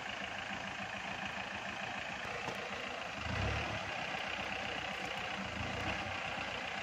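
Mahindra Bolero SUV's engine running at low revs as it crawls over rocks, swelling briefly into a louder pull about three seconds in and again a couple of seconds later.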